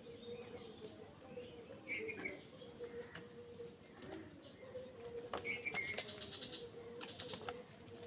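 House crows and common mynas at a food tub: short chirping calls about two seconds in and again near six seconds, with wing flaps and light clicks scattered through the middle. A faint steady hum runs underneath.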